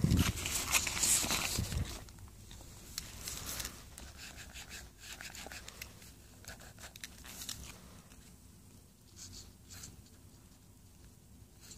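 Loud rustling for about the first two seconds as the paper is shifted, then a graphite pencil scratching on paper in short, intermittent strokes.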